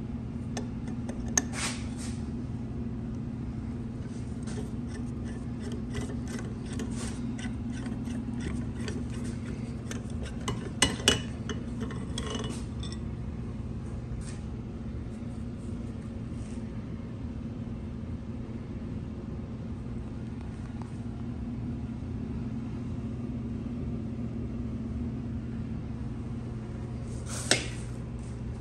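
Steel parts of a lathe compound slide clinking and rattling lightly as the lead screw, with its gear and bearing sleeve, is worked out of the cast-iron housing and handled. The sharpest clinks come about 11 seconds in, and one more near the end as the lead screw is stood on the steel bench. A steady low hum sits under it all.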